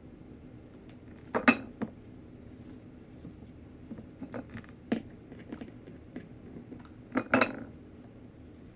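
Clinks and knocks of a small glass vase being handled and set against a hard work surface while rope is hot-glued around it: a cluster of clinks about a second and a half in, another near the end, and lighter taps between.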